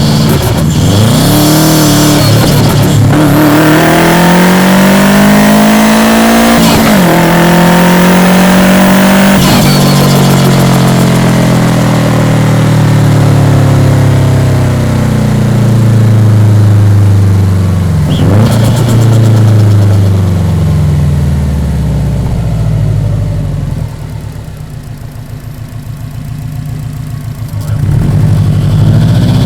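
Subaru Impreza WRX's EJ207 turbocharged 2.0-litre flat-four engine under load: the revs climb in pulls with short breaks between them, then fall away slowly over several seconds. Near the end it goes quieter for a few seconds before the revs rise again.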